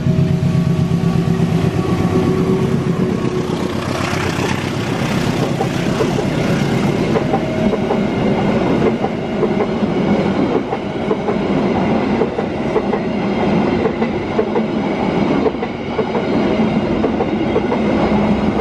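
Indonesian diesel passenger train passing at close range. The locomotive's engine drones by in the first few seconds. The stainless-steel coaches' wheels then rumble and clatter over the rails and the road crossing for the rest of the time.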